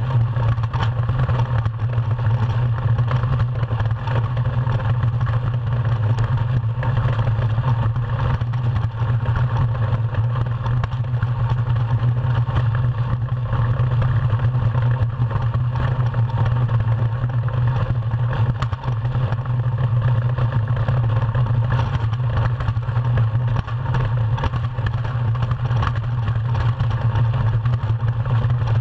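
Iceboat runners sliding over lake ice at speed: a steady low rumble carried through the hull, with many small clatters from bumps in the ice.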